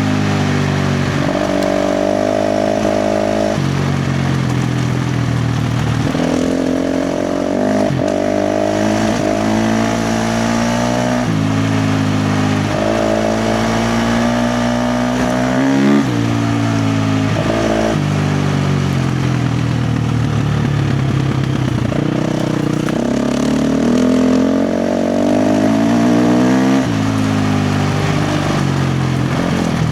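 KTM 350 XC-F dirt bike's single-cylinder four-stroke engine ridden hard on trails, its pitch repeatedly climbing under throttle and then dropping as the rider shifts or rolls off, with a brief sharp blip about halfway through.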